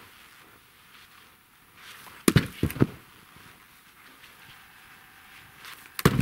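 Dry deadwood being handled in deep snow: a quick cluster of three loud wooden knocks a little over two seconds in, and another cluster of knocks near the end.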